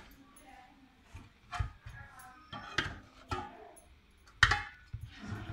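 Metal cookware clattering: a spoon and chicken pieces knocking against a steel bowl and an aluminium pot, four short knocks with a brief ring, the loudest near the end.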